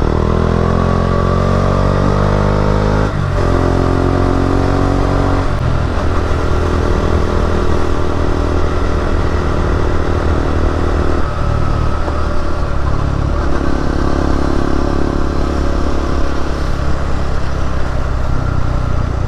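KTM RC 200's single-cylinder engine accelerating through the gears: its pitch climbs, drops at a shift about three seconds in, climbs again until about five seconds in, then settles into a steadier cruise with a couple more changes in pitch later on.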